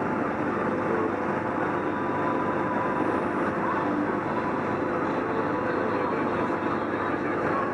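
A Sherp ATV's diesel engine running steadily under load as it drives through mud, heard from inside the cab.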